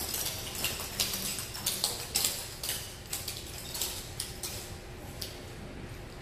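Metal clogging taps on dancers' shoes clicking irregularly on a hard floor as the dancers shift and step their feet.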